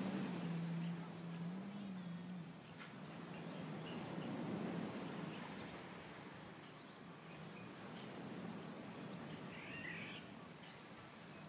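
Birds chirping, scattered short high calls, with a busier call near the end, over a steady outdoor background hiss. A low steady hum wavers and fades out in the first couple of seconds.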